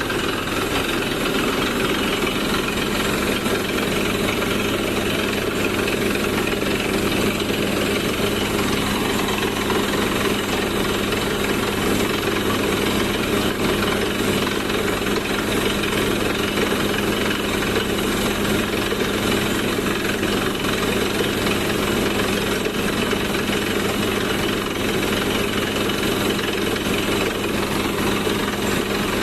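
Truck-mounted borewell drilling rig working, a steady unbroken engine and machinery drone with a continuous hammering rattle.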